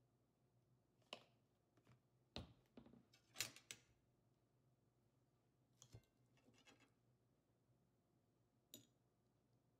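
Quiet handling noises at a meal table: a handful of soft clicks and clinks as a plastic ketchup bottle is put down and a metal fork and knife are picked up and handled, the busiest cluster about three and a half seconds in.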